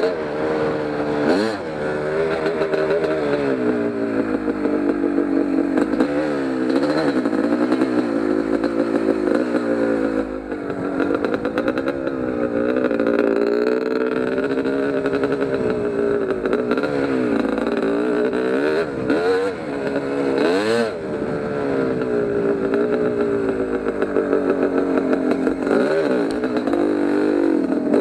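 Kawasaki KX250 two-stroke dirt bike engine running under load, its revs rising and falling again and again as the throttle is worked. The revs drop briefly about ten seconds in and climb sharply a few times later on.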